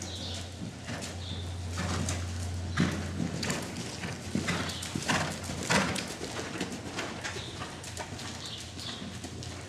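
Hoofbeats of a ridden Hanoverian mare moving over the sand footing of an indoor arena, a run of dull strikes that grow louder in the middle as she passes close.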